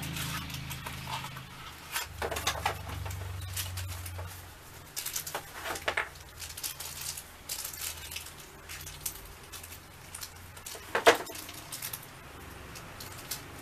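A small cardboard mystery pin box and its packaging being opened and handled: scattered rustling, scraping and crinkling with a few sharper clicks, the loudest about eleven seconds in.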